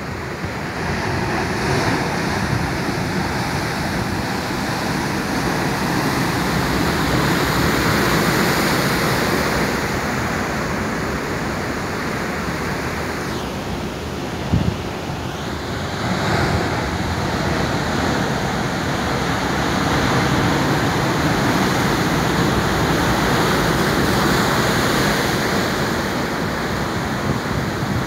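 Ocean surf: large waves breaking and churning into foam against rocks, a continuous rush of water that swells and eases as each wave comes in.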